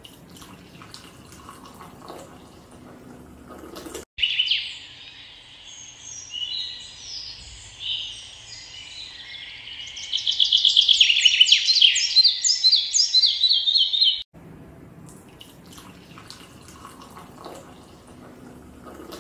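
Birds singing: high chirps and whistles, then a loud rapid trilling song in the middle. Before and after the birdsong, a fainter splashing of liquid being poured.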